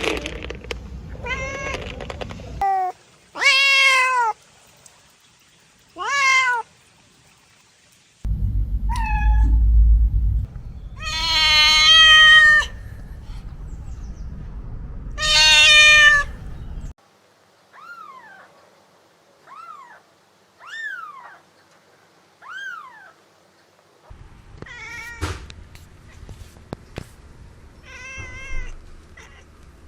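Domestic cats meowing: a string of separate meows, some long and loud, and near the middle four short, fainter falling meows about a second apart.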